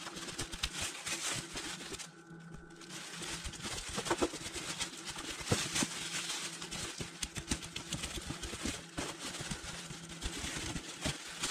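Spoon scraping the scales off a croaker inside a plastic bag: many quick, irregular scratching strokes mixed with the crinkle of the bag, over a faint steady hum.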